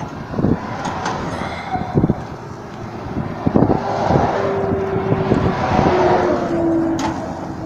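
A vehicle passing on the road: its noise swells a few seconds in, with a steady tone that slides slowly lower, then fades near the end. Low rumbling thumps run underneath.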